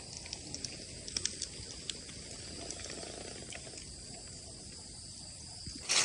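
Steady high-pitched insect chorus in tropical forest, with a few faint ticks scattered through it. Just at the end a louder rustle of footsteps in dry leaves starts.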